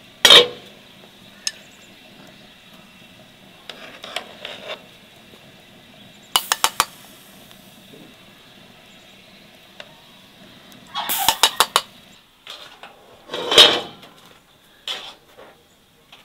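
Cooking pots, dishes and metal utensils clinking and knocking in scattered bursts. A loud knock comes right at the start, a quick run of four or five sharp clinks about six seconds in, a cluster of clinks about eleven seconds in, and another loud knock a couple of seconds later.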